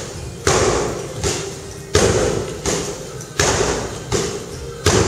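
Punches and kicks landing on heavy punching bags and pads, a steady series of sharp thuds about one every 0.7 seconds, each echoing in the large gym hall.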